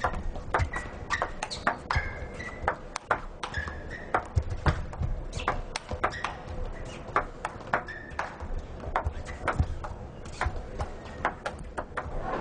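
Table tennis rally: the ball clicking off the rackets and the table in quick, irregular alternation, with short high squeaks from the players' shoes on the court floor.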